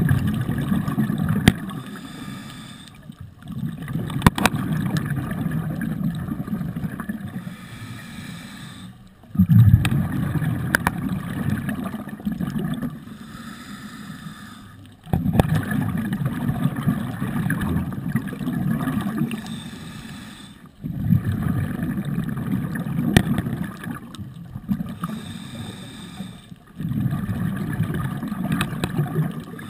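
Scuba diver breathing through a regulator underwater: a bubbling rush of exhaled air about every six seconds, with quieter inhalations between. A few sharp clicks are scattered through it.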